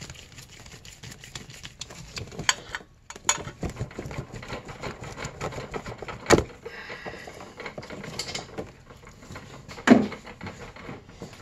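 Handling noise of gloved hands working a hose off a fitting at a snowmobile carburetor: scattered clicks, light knocks and rustling, with a sharp knock about six seconds in and a louder one near the end.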